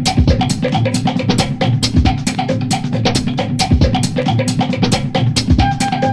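Background music with a drum kit keeping a steady beat: quick sharp hits several times a second over a deep bass drum about every two seconds. A few held melody notes come in near the end.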